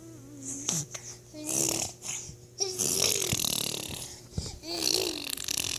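About four snore-like snorting grunts in a row, each a wavering pitched sound with a hissy breath behind it: the playful funny noises Josh makes.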